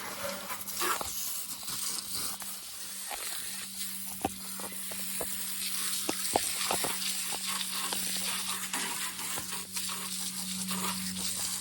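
Water from a hose spraying onto a lawnmower: a steady hiss with scattered splashes and drips, and a faint steady hum underneath.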